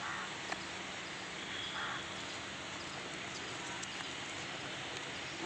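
Steady outdoor background noise with a few faint clicks and a couple of short, faint high chirps; no clear animal call stands out.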